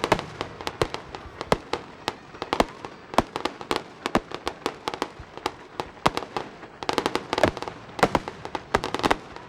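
Fireworks display: a rapid, irregular string of sharp bangs and cracks from exploding shells, growing into a dense volley about seven seconds in.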